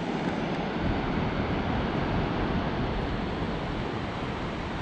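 Steady rushing noise with a fluttering low rumble, wind blowing over the phone's microphone outdoors.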